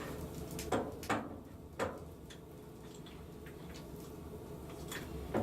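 Scattered sharp clicks and knocks of metal parts on a lathe being worked by hand: three close together in the first two seconds and another near the end, with lighter ticks between, over a steady low hum.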